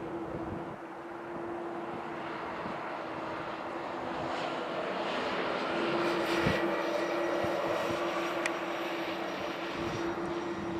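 Jet airliner engines running at taxi power: a steady hum under a rushing noise that swells from about four seconds in, with a thin high whine joining near the middle.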